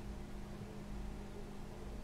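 Quiet room tone: a faint steady hum with a low rumble and light hiss.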